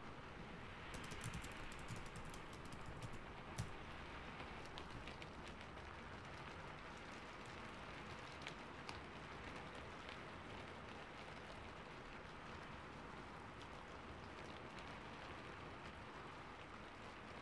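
Computer keyboard typing, a run of quick clicks for the first few seconds with a few more near the middle, over a steady hiss of rain.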